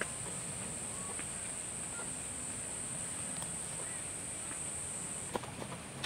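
A steady, high-pitched insect drone that stops abruptly about five seconds in, with a few faint ticks and rustles underneath.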